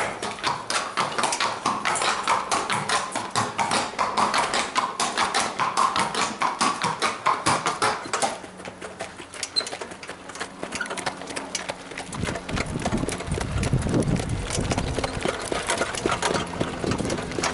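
Hooves of a trotting standardbred horse, a quick even clip-clop of about four strikes a second that fades about eight seconds in. From about twelve seconds wind buffets the microphone.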